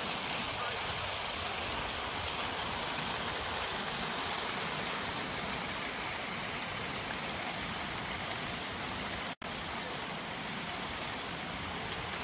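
Steady, even outdoor hiss of a wet car park's background noise, which drops out for a split second about nine seconds in.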